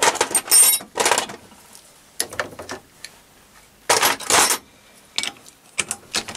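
Metal clanks, clicks and rattles of lathe tooling being handled, in several separate bursts. Near the end a chuck key works the lathe chuck to release the aluminium die holder.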